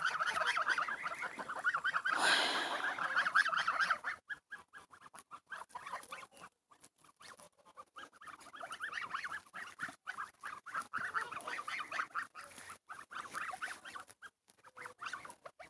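A flock of young domestic geese chattering with rapid soft calls as they graze. The chatter is loudest for the first four seconds, drops away, then picks up again from about eight to twelve seconds.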